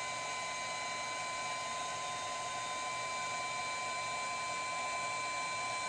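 Steady hiss with a constant high-pitched whine from a small electric appliance running, with no change in pitch or level.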